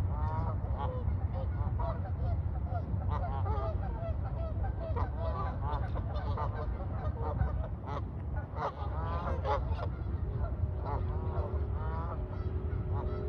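A flock of Canada geese honking, many short calls overlapping and repeating throughout, over a steady low rumble. A faint steady hum comes in about ten seconds in.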